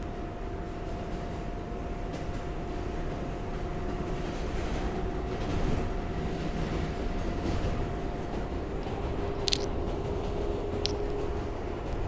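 R142A subway car running at speed on elevated track, heard from inside the car: a steady rumble of wheels on rail with a steady motor hum. Near the end come two brief high-pitched squeaks about a second apart.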